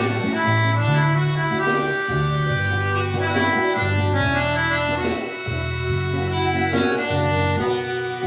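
Solo accordion playing a melody of held notes over a bass line that moves to a new note about every second.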